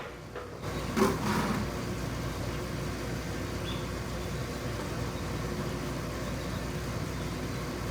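A couple of sharp plastic clicks as the vent-tube clip and stopper come off, then a steady rushing hiss that sets in suddenly as coolant and trapped air run out of the opened cooling-system vent tube of a Subaru Sambar KS4, bleeding the air from the system.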